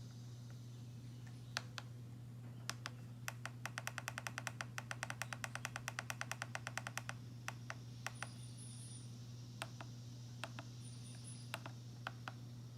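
Clicking of the DYMO LabelManager 160's keys: scattered single presses, then a fast even run of about ten clicks a second for some four seconds in the middle, over a faint steady hum.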